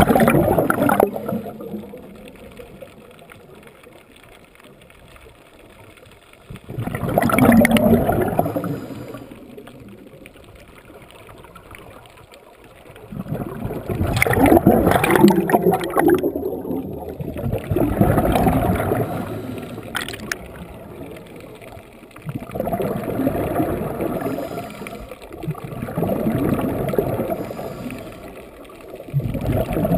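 Scuba diver's regulator exhaust bubbles gurgling underwater. A burst of bubbles swells and fades every few seconds with each exhalation, about six times, with quieter stretches between breaths.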